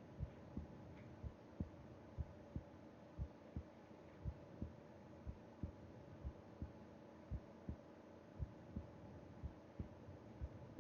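Human heartbeat heard through the chest of a sleeper: slow, steady lub-dub double thumps at about one beat a second, the resting pulse of sleep, over a faint steady hum.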